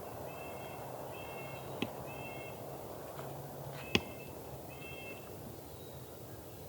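Crows cawing, a series of short harsh calls repeating about once a second. There is a sharp click about two seconds in and a louder one about four seconds in.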